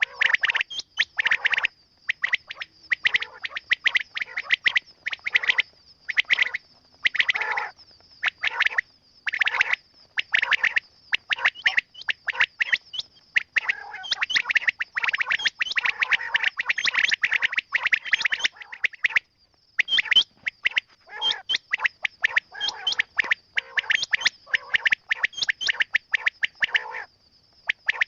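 Quail calling: rapid runs of short chirping notes in bursts with brief gaps, nearly continuous for a stretch near the middle, over a steady high-pitched tone.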